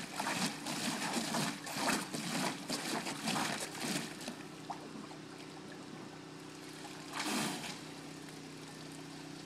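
Malamute splashing about in the shallow water of a plastic kiddie pool: a run of quick, irregular splashes for the first four seconds or so, then quieter trickling water, with one more splash a little after seven seconds.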